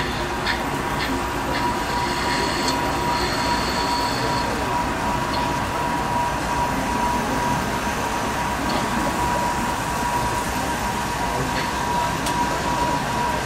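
Exhibition hall background noise: a steady murmur with a constant high-pitched tone running through it, and a few faint ticks in the first few seconds.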